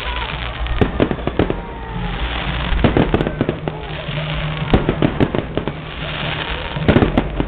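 Fireworks display: aerial shells bursting in sharp bangs at irregular intervals, several close together around three seconds in and again near the end, over the murmur of the watching crowd.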